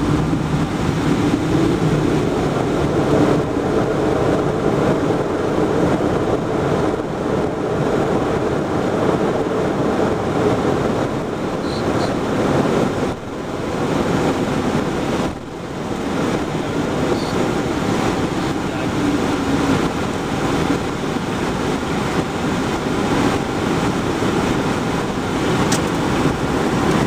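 Steady cabin noise inside the cockpit of a Cessna Citation Encore business jet as it rolls along the runway: a constant rush of engine and airflow noise, dipping briefly twice around the middle.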